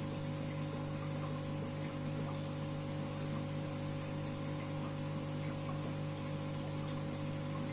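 Aquarium pump running: a steady low hum with a hiss of moving water.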